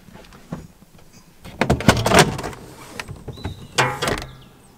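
Motorhome roof hatch over the kitchen being worked by hand: sliding and rattling of its frame and blind in two noisy bursts about two seconds apart, after a few light clicks.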